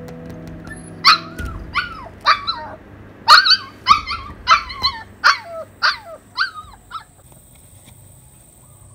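A puppy whining and yelping: about a dozen short, high cries, each bending in pitch, coming roughly twice a second from about a second in until near seven seconds.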